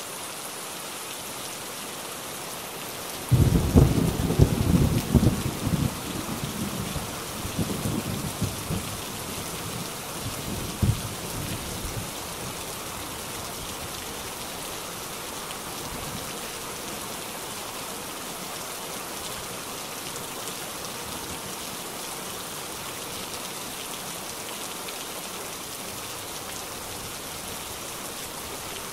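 Steady hiss of rain and running floodwater. A heavy, irregular low rumbling rises over it from about three seconds in and dies away by about twelve seconds.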